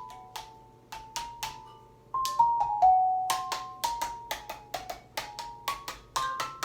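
Xylophone bars struck in a quick run of single notes, each a short bright ring, stepping down in pitch around the middle and climbing higher toward the end.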